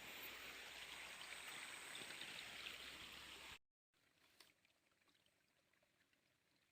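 Faint, steady rush of a small river's flowing water, which cuts off suddenly about three and a half seconds in, leaving near silence with one tiny click.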